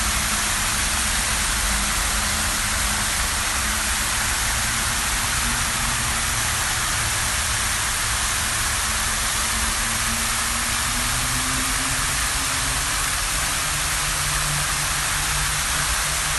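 Public water fountain splashing in a steady, even hiss of falling water. Underneath, a faint low hum rises in pitch about ten seconds in.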